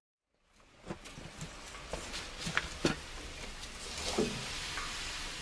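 Maple sap boiling down to near-syrup in a wood-fired flat evaporator pan, giving a steady steamy hiss, with a few knocks and clunks as the pan is handled, two close together near the middle. The sound fades in after a moment of silence.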